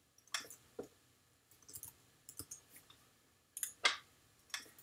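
Computer mouse clicks and keyboard keystrokes, irregular and in small clusters, as bones are selected and renamed in a 3D program.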